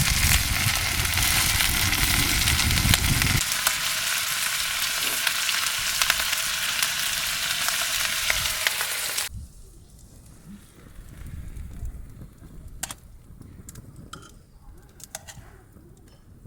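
Food frying with a loud, steady sizzle that cuts off abruptly about nine seconds in. After that it is much quieter, with a few sharp clicks.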